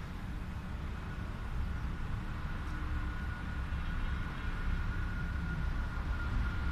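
A low, uneven rumble with a thin steady whine above it.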